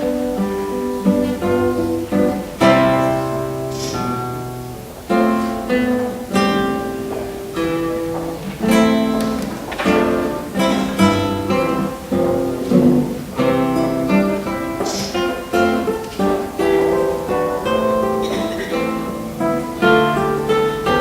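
Acoustic guitar music: picked notes and strummed chords that ring and fade.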